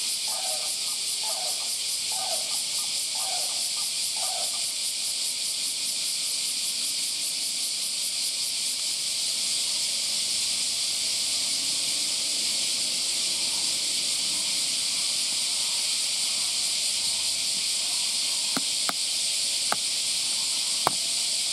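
Steady chorus of cicadas, a dense high hiss. Near the end come four sharp snaps as a giant panda bites through bamboo stems.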